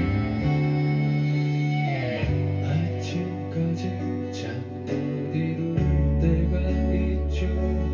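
Live pop band playing an instrumental passage: guitar over sustained bass and chords, with a light, evenly spaced percussion beat coming in about three seconds in.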